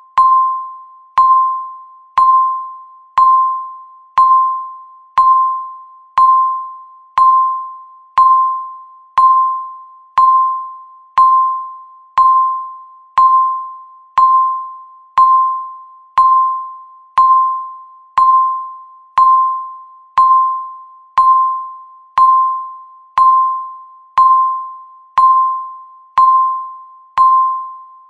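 Countdown timer's tick sound, once a second: each tick a sharp click with a ringing, bell-like tone that fades away before the next.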